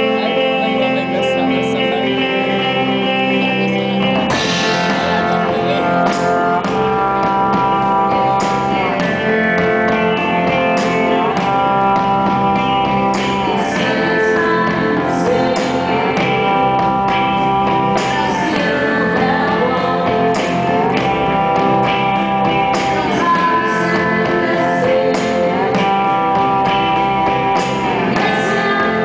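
Live rock band playing: an electric guitar intro, with a steady beat joining about four seconds in. A woman sings long, held notes over it.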